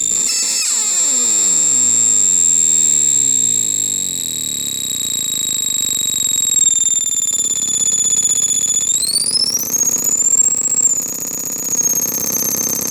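CMOS-based harsh noise synth putting out shrill, piercing high tones over a gritty, distorted noise bed. A cascade of falling sweeps runs underneath in the first few seconds, and about nine seconds in the high tones glide upward in pitch, then settle slightly lower near the end.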